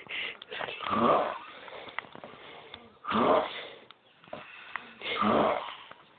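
A sleeping person snoring: three snores about two seconds apart, with quieter breathing between them.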